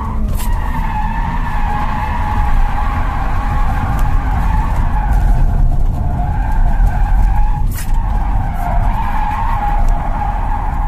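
Winter tyres squealing through a long drift slide on a BMW E46 323Ci, heard from inside the cabin, with the car's straight-six engine running underneath. The wavering squeal breaks off briefly about eight seconds in and stops at the very end.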